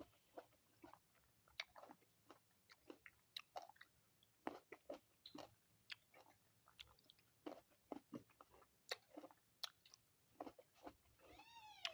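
A person chewing and biting into fresh fruit with a closed mouth: irregular soft crunching clicks, several a second. Near the end a short pitched sound rises and falls.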